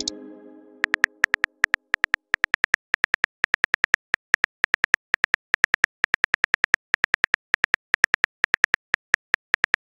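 Phone keyboard typing clicks: a quick, irregular run of short ticks as a text message is typed out letter by letter. In the first second or so, the tail of the message-sent tone fades out.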